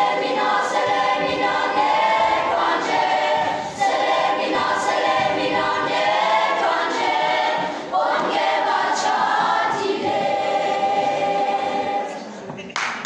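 Children's school choir singing together, ending on a long held note before the singing stops near the end.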